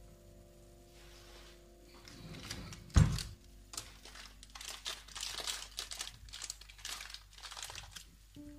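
A sharp knock about three seconds in, then a run of short crinkling, rustling handling noises, over faint background music.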